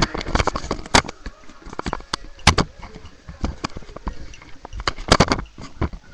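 Handling noise of a handheld webcam being moved about: irregular knocks, bumps and rubs against its microphone, with the loudest clusters about two and a half seconds in and again about five seconds in.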